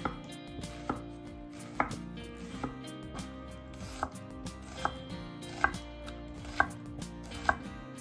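Chef's knife slicing through raw onions and tapping the wooden cutting board, one sharp cut about every second, nine in all.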